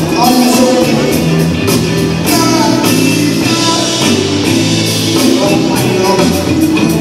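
Upbeat dance music with a singing voice and a steady beat, band music played for ballroom dancing.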